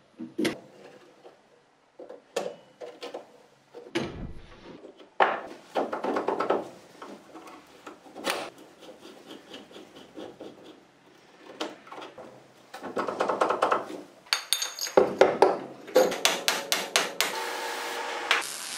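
Metal workshop parts handled on a wooden workbench: a steel shaft, a flanged bearing housing and a screwdriver knock, click and scrape at irregular intervals, with a quick run of clicks near the end.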